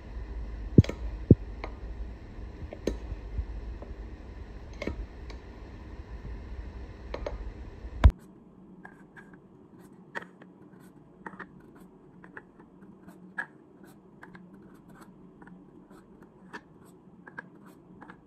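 A whisk stirring thick batter in a stainless steel bowl, with sharp clinks against the bowl every second or two. A single loud knock about eight seconds in, then light papery rustles and small taps as paper muffin cups are pulled apart and set down on a counter.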